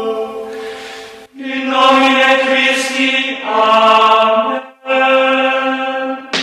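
Choir-like voices holding long, steady chords in three phrases separated by brief breaks, the chord changing partway through the middle phrase.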